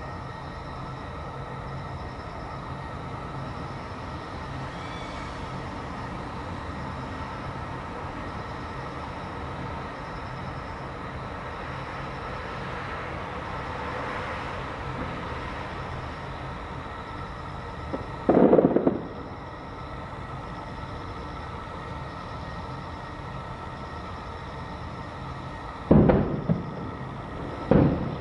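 Distant aerial fireworks shells bursting. There is one boom about two-thirds of the way in, then two more close together near the end, over a steady low background hum.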